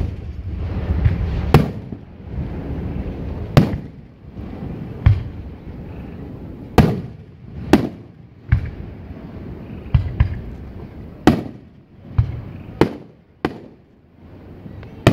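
Aerial fireworks shells going off: about a dozen sharp booms at irregular gaps of roughly a second, each trailed by a rolling echo.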